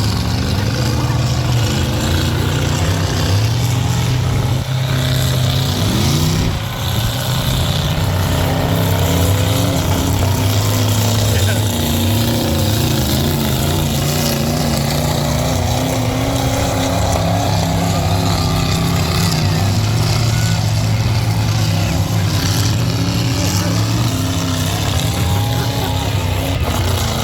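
Several demolition-derby truck engines running hard, their pitch rising and falling as they rev, with voices mixed in.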